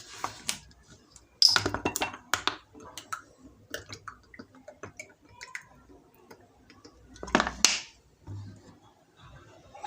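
Glass and utensils clicking and knocking against a mixing bowl while a glass of oil is added to beaten eggs, with a louder burst of clattering about two-thirds of the way through.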